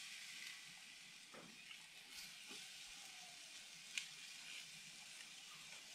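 Steak sizzling faintly as it sears on hot grill grates under a pressing spatula, with a single light click about four seconds in.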